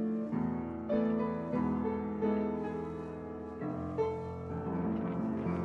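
Background music: a piano piece, slow notes and chords.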